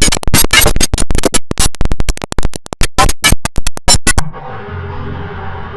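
IBM OS/2 Warp 3 shutdown sound run through stacked digital audio effects, chopped into rapid stuttering bursts that sound like record scratching. At about four seconds it cuts abruptly to a quieter, muffled version with steady tones.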